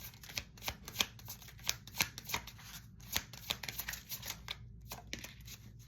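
A tarot deck being shuffled by hand: a quick, irregular run of card flicks and snaps.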